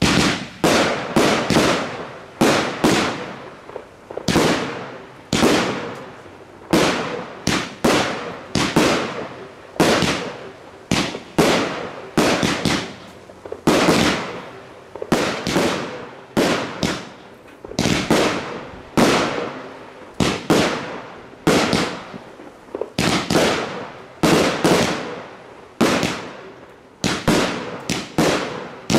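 A 36-shot consumer firework battery (cake) firing silver kamuro shells: a steady run of sharp bangs, one or two a second, each fading off in a short tail.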